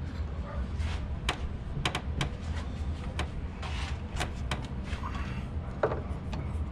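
Scattered light clicks and knocks of a gas hood strut being handled and fitted onto its mounting studs under the hood, over a steady low hum.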